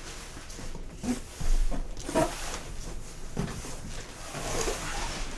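Large cardboard shipping box being unpacked by hand: cardboard flaps scraping and knocking a few times, with some rustling of plastic air-pillow packing near the end.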